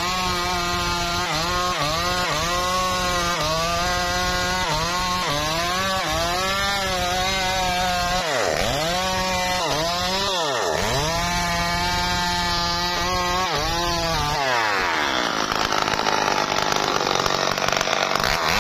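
Stihl MS 381 two-stroke chainsaw at high revs cutting through a tree trunk, its pitch sagging and recovering under load, with two sharp dips in revs around the middle. Over the last few seconds the revs fall away slowly while a louder rushing noise rises.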